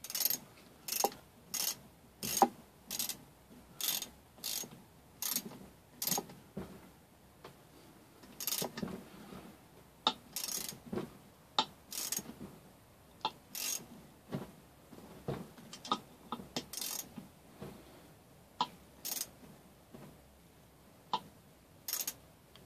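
Repeated sharp clicks from hand tools working on a 3 hp small engine during reassembly. They come about two a second for the first several seconds, then grow irregular and sparser.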